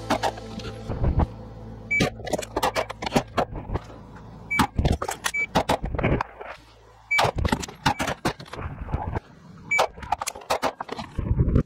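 Electronic shot-timer beeps, each followed within a couple of seconds by a short string of 9mm pistol shots from an S&W M&P9 2.0, repeated several times: a timed drill of one shot, a magazine change, then two shots.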